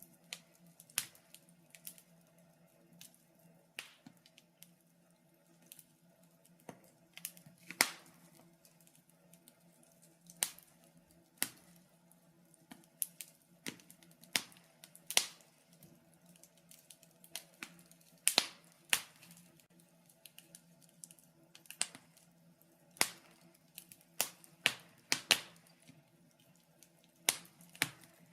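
Wood fire crackling in a fireplace: irregular sharp pops and snaps, a few much louder than the rest, over a faint steady low hum.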